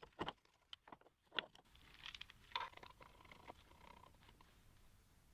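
Faint, scattered clicks and light taps, several in the first second and a half, then a weak hiss with a faint steady tone that fades to near silence.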